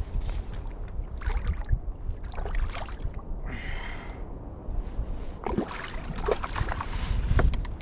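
Water lapping and sloshing around a fishing kayak, with scattered knocks and scrapes of handling on the hull.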